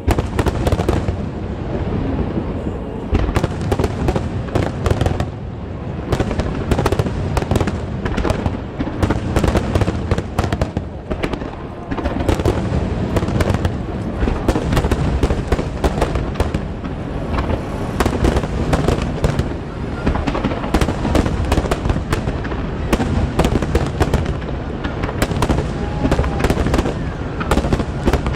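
Large aerial fireworks barrage: many shells bursting in rapid, overlapping succession, booms mixed with crackling, without a break.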